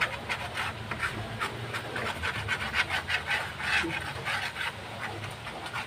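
Metal spatula scraping and stirring chicken pieces around a metal wok in quick, irregular rasping strokes. The strokes are loosening the browned, sticky bits from the bottom of the pan.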